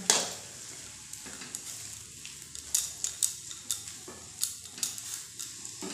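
A steel spatula stirring and scraping a thick mashed potato and tomato filling in a kadhai, with irregular scrapes and light taps against the pan. A faint sizzle runs underneath from the hot pan.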